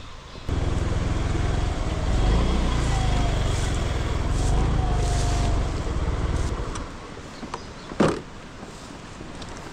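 A motor vehicle engine running, starting suddenly about half a second in and dying away after about six seconds. A single sharp knock follows near the end.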